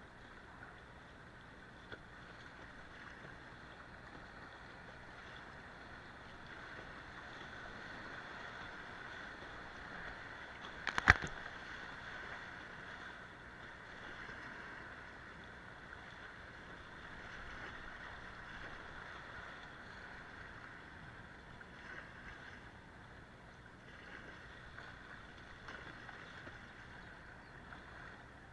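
River water rushing and splashing around a kayak in choppy current, with one sharp knock about eleven seconds in.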